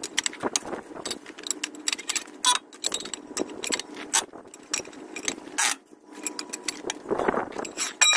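Metal clicks and clinks of a steel socket and long-handled wheel wrench being fitted onto and turned on a truck's wheel nuts, with a brief ringing clink about two and a half seconds in and another near the end.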